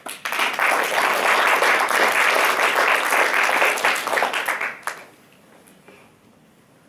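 Audience applauding for about five seconds, then stopping.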